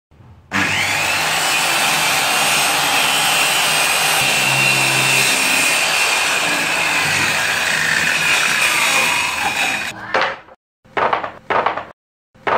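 Handheld electric circular saw cutting through an MDF sheet, running steadily with a high motor whine for about nine seconds, its pitch sagging toward the end of the cut. After it stops, a few short, sharp noises follow.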